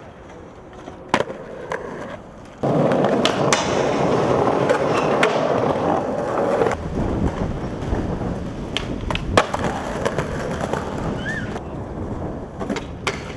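Skateboard wheels rolling loudly on concrete, starting abruptly about two and a half seconds in, with sharp clacks of the board's tail popping and the board landing scattered through; a few lighter clacks come before the rolling starts.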